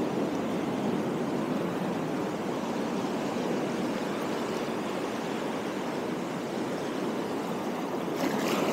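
Shallow sea water washing over rocks at the waterline, a steady rushing wash, with a brief higher hiss near the end.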